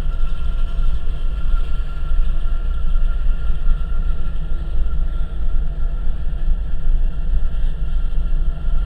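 Freight train rolling past, a loud steady low rumble of the cars on the rails with a thin, steady, high squeal above it.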